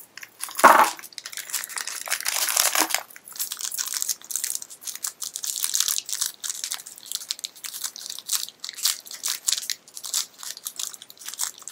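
A small blind-bag wrapper crinkling and crackling as it is torn open and handled by hand. The crackling is continuous, with a sharp loud crackle under a second in and a longer tearing stretch around two to three seconds in.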